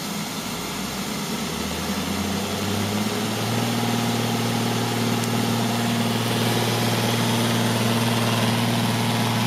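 Neato XV-11 robot vacuum starting a cleaning run: its motors spin up with a hum that rises in pitch over the first few seconds, then settles into a steady drone.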